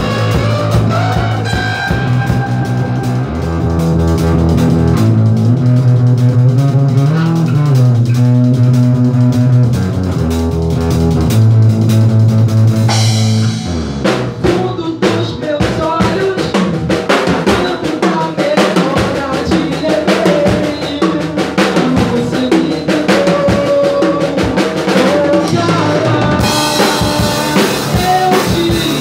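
Rock band playing live with drum kit, bass and guitar. Long, steady low notes open the passage. About halfway through the drums turn to a busier beat, and cymbals wash in near the end.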